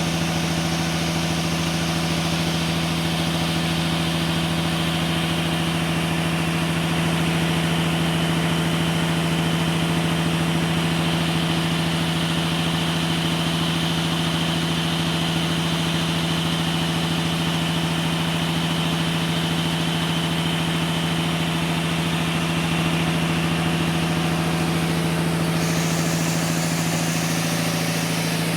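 Sawmill engine running steadily at a constant speed, a continuous hum with a strong low tone and its overtones that does not change in level. The higher hiss shifts slightly near the end.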